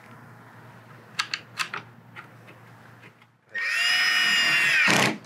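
A few faint small clicks, then a cordless drill driver spins up, runs steadily for about a second and a half with a high whine, and stops, driving in a screw that holds a speaker in the motorcycle's fairing pod.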